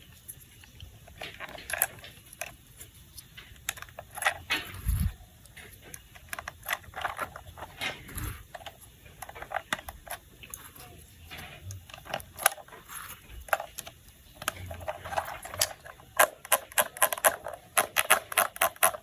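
Plastic toy parts being handled and fitted together: irregular small clicks and taps, coming faster and more densely in the last few seconds.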